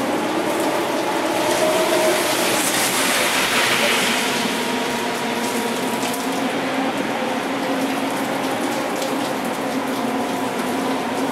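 Typhoon rain and rushing water: a steady, dense noise that swells a little about two to four seconds in.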